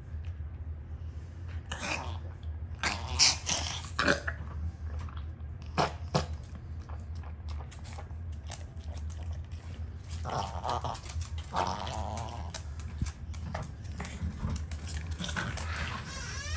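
Small long-haired dog gagging and spitting up foam, with wet mouth noises, swallowing and lip-smacking in irregular bursts, loudest a few seconds in. A steady low hum runs underneath.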